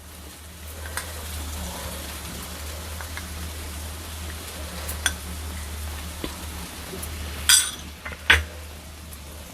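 A spoon stirring sesame powder into broad beans in a pan on the stove, scraping with scattered clinks against the metal pan and two loud knocks about a second apart near the end, over a faint sizzle and a steady low hum.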